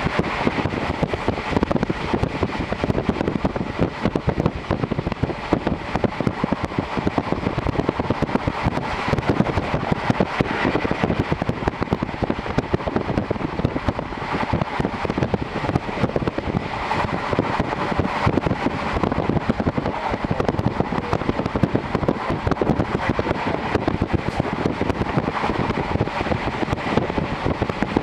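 JR Series 711 electric train running at speed, heard from inside the carriage with the window open: a steady rush of wheels on the rails and air through the open window.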